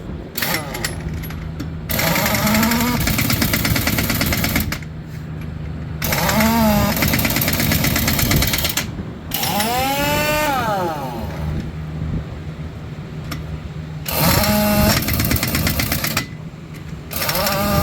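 Pneumatic impact wrench hammering wheel nuts tight on a truck wheel, in several runs of a few seconds each with short pauses between nuts.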